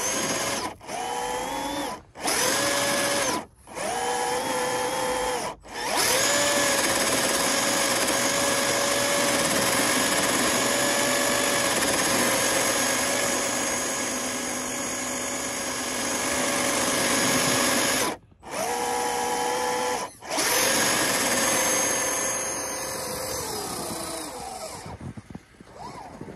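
Whine of an RC crawler truck's electric motor and geartrain pushing through deep snow. It comes in short throttle bursts of a second or two, then holds steady for about twelve seconds, cuts out twice, and winds down in pitch near the end.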